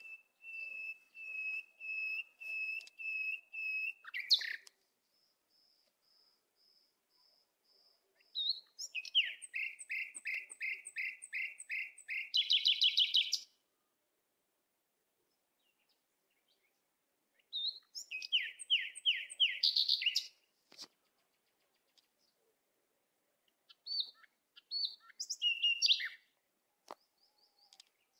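Songbird singing: a run of steady whistled notes, about two a second, then fast trilled phrases, with pauses of a few seconds between phrases.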